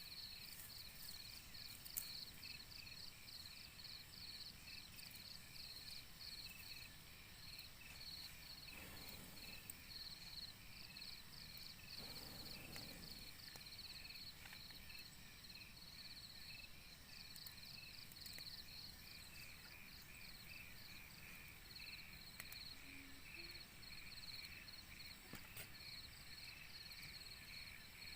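Faint chorus of insects chirping in rapid, evenly pulsed trains, high in pitch, over a low steady hiss of forest background.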